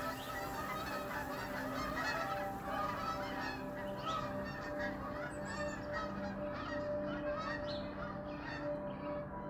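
A flock of geese honking, many short calls overlapping in quick succession, over steady held tones underneath.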